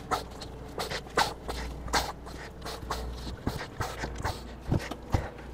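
Threaded pusher tools being turned by hand into the screw holes of a Cummins ISX ECM's metal cover, giving irregular clicks and scrapes of metal on metal as the threads bite into the lid to jack it off the unit.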